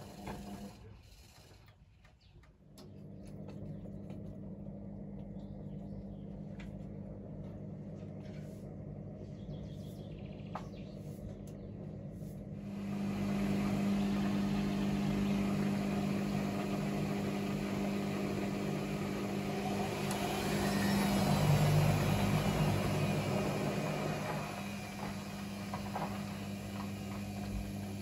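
Atlant 45Y82 front-loading washing machine going from rinse into spin. The drum stops briefly, then a steady hum of draining and slow turning starts. About halfway the motor speeds the drum up, louder with a rising whine, and eases off a little near the end.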